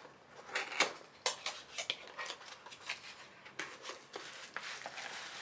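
A cardboard box being opened and plastic packaging handled: irregular short crinkles and scrapes, turning to more continuous rustling near the end.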